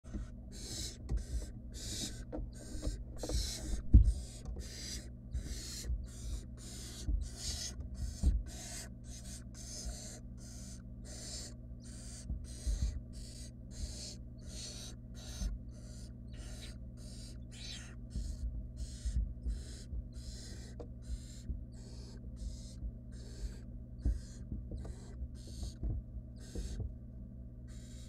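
Barn owl nestlings food-begging: a long run of short rasping hisses, about one and a half a second. Scattered thumps and scuffles from owls moving in the wooden nest box, the loudest about four seconds in, over a steady low hum.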